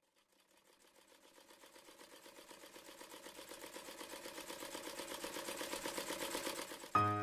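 Sewing machine running, its needle stitching at a rapid, even rhythm and growing steadily louder. A piano chord comes in right at the end.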